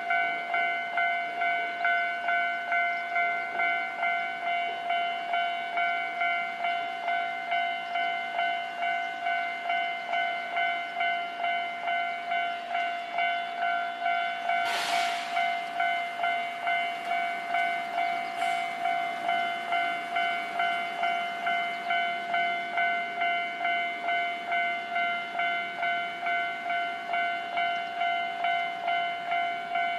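Japanese level-crossing warning bell ringing steadily in an even, repeating ding-ding, signalling that the crossing is closed. A short hiss comes about halfway through, with a fainter one a few seconds later.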